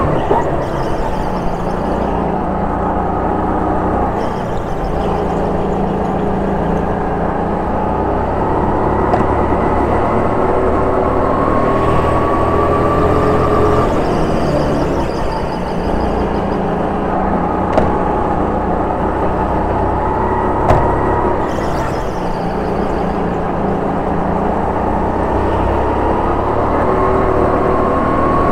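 Indoor go-kart heard from on board through a full lap: the motor runs continuously, its pitch climbing along the straights and dropping back into the corners. Two sharp knocks come in the second half, about three seconds apart.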